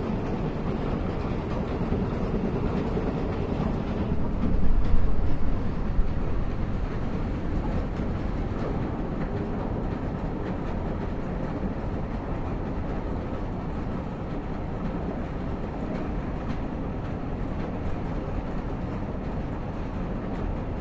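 Screw-type oil expeller pressing mustard seed, running as a steady dense mechanical rumble with fast rattling clicks, as seed cake is forced out around the turning shaft. Briefly louder about five seconds in.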